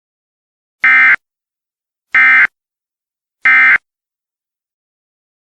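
Emergency Alert System end-of-message code: three short bursts of screechy digital data tones, evenly spaced about a second and a half apart, marking the end of the alert.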